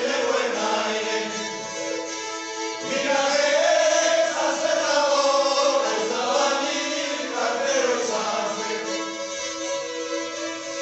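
A group of men singing a folk song in unison to Cantabrian rabeles, small bowed folk fiddles, with one steady drone note held under the melody.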